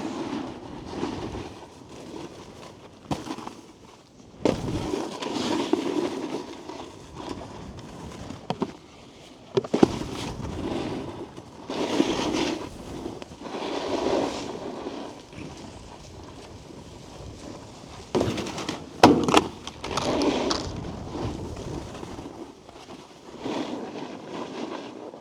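Snowboard edges carving and skidding on packed snow in repeated swells of scraping, with a few sharp knocks where the board hits rails and a box, the loudest about two-thirds of the way through.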